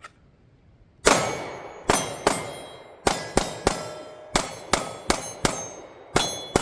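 Pistol shots fired at steel plates, each hit answered by the steel ringing. The shots start about a second in and come in groups of one, two, three and four, then the first two of a group of five, as in a 1-to-5 drill on five steel targets.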